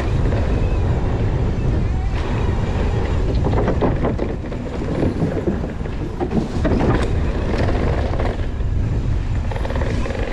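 Mountain bike riding down a dirt trail, with wind buffeting the microphone and the tyres rumbling over the ground. The bike rattles over bumps about four and seven seconds in.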